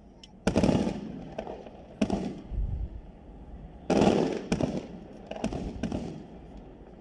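Aerial fireworks shells bursting in a quick series of sudden bangs, each trailing off in a rolling echo; the loudest comes about four seconds in.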